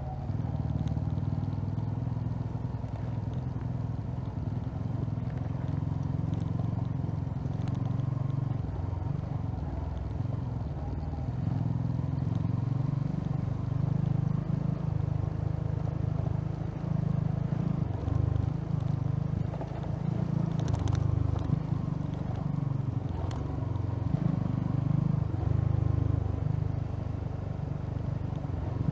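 Honda CB150R motorcycle's single-cylinder engine running while riding, its note swelling and easing, with a few light rattles.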